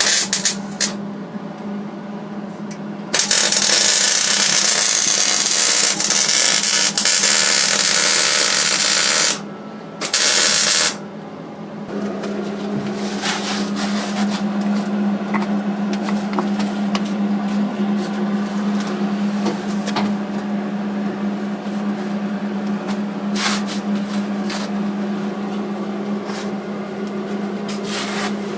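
Metalworking power tools at work on a car's crossmember: a loud hiss for about six seconds starting some three seconds in, a second short burst a second later, then a long run of crackling and clicks over a constant hum.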